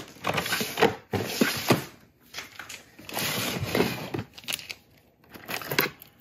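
Plastic fidget toys being rummaged through in a plastic storage drawer: Wacky Tracks snap-link chains and zipper bracelets rattling and clicking against each other, with a couple of brief lulls.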